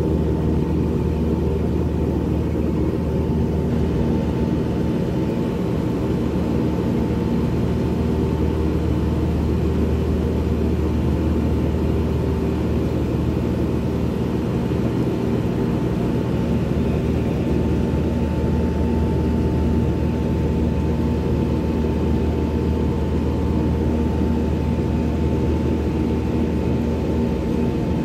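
Trane rooftop air-conditioning unit running with its compressor on, a steady hum that holds level throughout.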